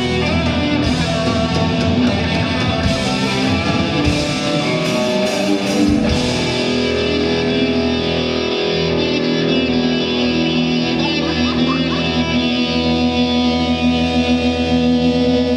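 A live hard rock band playing distorted electric guitars over bass and drums, with no singing. About six seconds in the cymbals and drums fall away, leaving held, ringing guitar chords.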